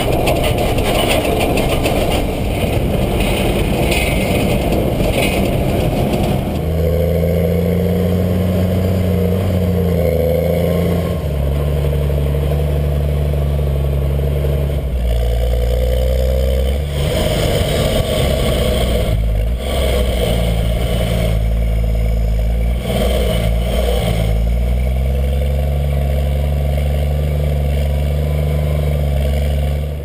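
Rubber track and bogie wheels of a Kinze 1050 grain cart rolling with a noisy clatter and wind rush. About six seconds in, the Case IH Magnum 305 tractor's diesel engine takes over, pulling steadily, its pitch stepping up and down several times as it changes speed.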